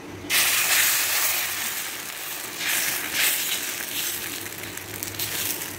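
Raw potato dosa batter sizzling as it hits a hot tawa and is spread around with a ladle. The sizzle starts suddenly about a third of a second in, slowly eases, then swells again around three seconds in.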